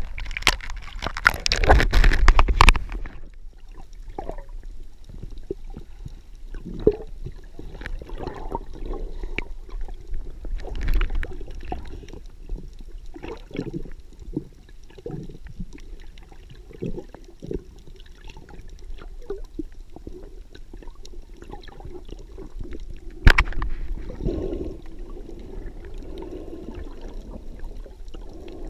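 Water splashing around a camera at the surface for the first few seconds, then muffled underwater gurgling and sloshing heard through the submerged camera. A single sharp knock comes about 23 seconds in.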